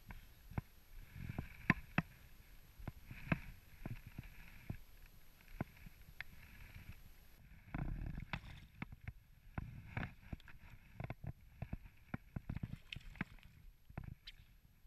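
Water splashing and sloshing right beside a float tube as hands work in the water, with many irregular sharp clicks and knocks.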